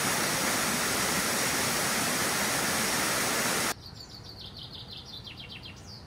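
Small forest waterfall rushing over rock: a loud, steady hiss of falling water that cuts off abruptly a little after halfway. A bird then sings a quick run of short, high notes over a quiet background.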